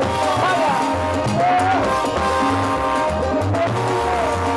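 Salsa orchestra playing live: a repeating bass line and congas under a lead singer's voice that glides up and down.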